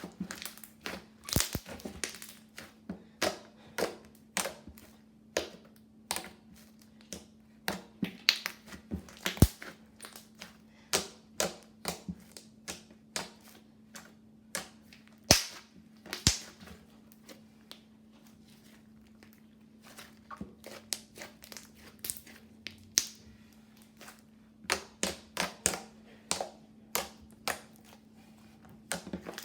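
Slime being squished and poked, giving irregular sharp clicks and pops, several a second, with a brief lull about two-thirds of the way through. A steady low hum runs underneath.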